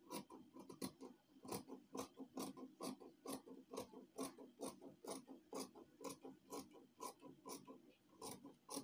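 Dressmaking scissors snipping through black fabric in a steady run of short, crisp cuts, about three a second.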